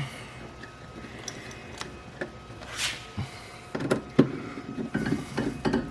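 Clicks and knocks of a replacement refrigerator control board being handled and pressed into its plastic mounting clips, with a brief scrape about three seconds in and a quicker run of knocks over the last two seconds.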